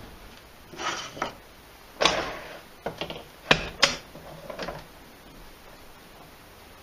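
A wooden worktop block being set into a bench vise and clamped. Several knocks and clatters of wood against the vise and of the vise mechanism, with two sharp knocks close together about three and a half seconds in.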